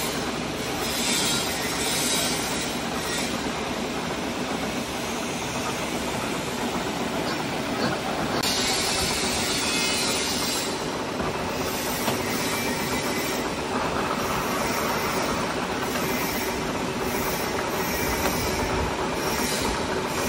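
Horizontal boring machine line-boring steel bores with a long boring bar: steady machine running noise with a metallic cutting hiss and squeal that swells and fades in stretches. The high cutting sound grows louder about eight seconds in.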